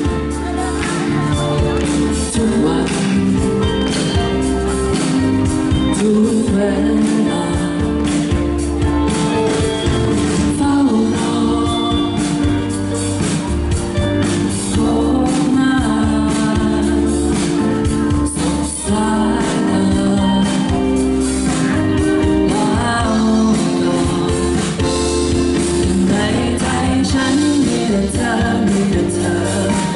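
A singer performing live into a microphone over amplified music with a steady bass line.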